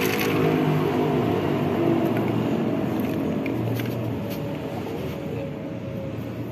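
An engine running steadily, easing slightly lower in level over the stretch, with a few faint light clicks.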